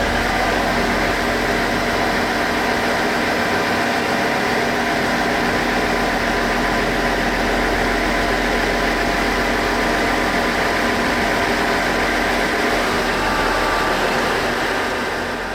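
KiYa E193 series East-i D inspection train's diesel engines idling, a steady hum with several fixed tones over a running noise; it eases off a little near the end.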